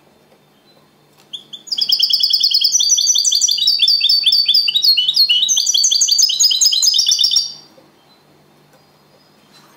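European goldfinch singing its trained 'copia Málaga' song: a burst of fast, rapidly repeated twittering notes that starts about a second in, runs for about six seconds and stops well before the end.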